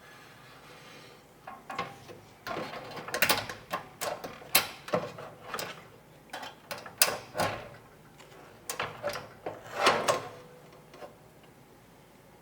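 Hands fitting PC components together: an irregular run of sharp plastic and metal clicks and taps with short scraping rustles, starting about a second and a half in and stopping about a second before the end.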